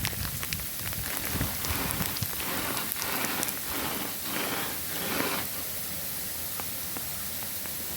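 Wintry rain falling steadily onto slush with a constant patter and hiss. A run of about five soft swishes comes through the middle.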